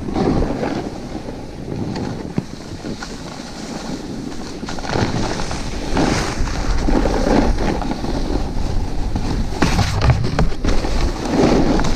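Snowboard sliding and carving over snow, a continuous scraping rush mixed with wind buffeting the action-camera microphone, with a few sharp knocks; the rumble grows louder about five seconds in.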